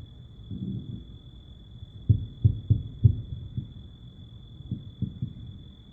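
Distant fireworks in a finale: a quick, uneven run of low, muffled booms, clustered from about two seconds in, muted and bass-heavy from distance.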